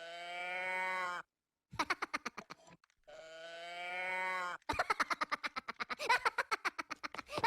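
Minion cartoon voice clips: a long held nasal vocal note that rises slightly, followed by rapid choppy chattering syllables. The pair repeats, and the second run of chatter is longer.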